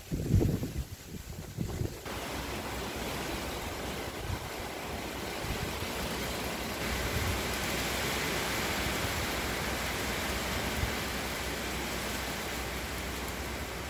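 Wind noise on the microphone: low buffeting thumps for about two seconds, then a steady rushing hiss that sets in abruptly and runs on evenly.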